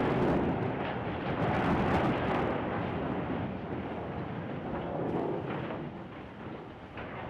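Rolling rumble of demolition cutting charges going off on a collapsed steel bridge truss. It is loud at first and fades steadily, with a few scattered crackles.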